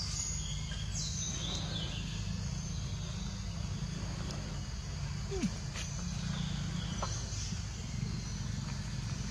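Outdoor background noise: a steady low rumble, with a few faint high chirps in the first couple of seconds and a couple of soft clicks around the middle.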